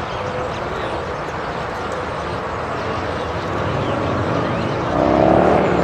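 Steady din of a huge flock of purple martins chattering overhead, over a low traffic rumble. A louder, slightly rising hum joins about five seconds in.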